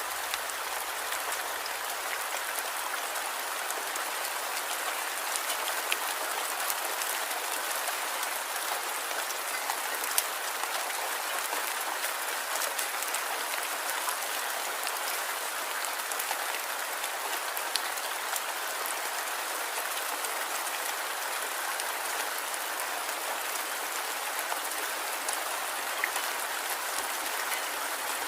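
Light rain falling steadily: an even hiss of drops with occasional sharper individual drop ticks.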